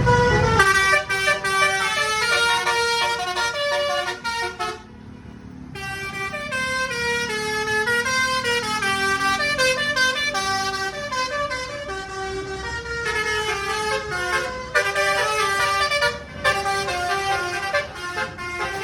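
Truck's telolet horn, a set of multi-tone horns playing a tune of quick stepping notes, with a brief break about five seconds in.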